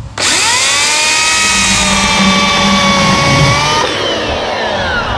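Kobalt corded electric chainsaw switched on, its motor whining up to speed and running steadily as the chain cuts into a log. It is released about four seconds in and the whine falls away as the motor spins down.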